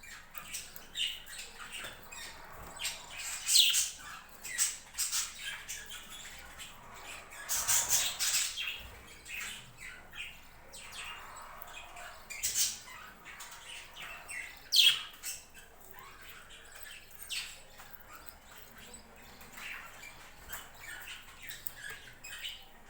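A flock of budgerigars chattering and squawking, with many short, sharp calls throughout and a few louder squawks standing out.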